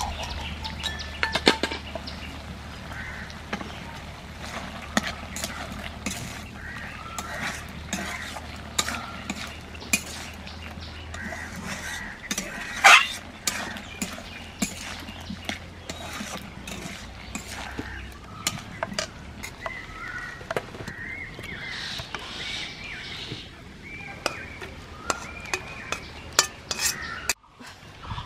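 Metal spatula stirring and scraping raw jackfruit and potato curry in a metal pan, with repeated clinks against the pan and one louder clank about 13 seconds in.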